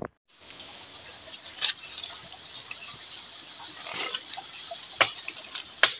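Steady high-pitched insect chorus in tropical forest, starting just after the cut, with four sharp clicks or taps over it.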